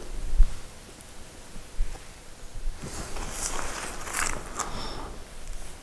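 Crunching and rustling of someone moving on dry, frozen snow. It comes in uneven bursts from about three seconds in, after a low bump near the start.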